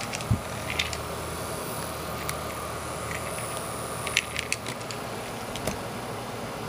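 A small plastic handheld fan being handled, giving a few sharp clicks and rattles with a cluster of them about four seconds in, over a steady hiss.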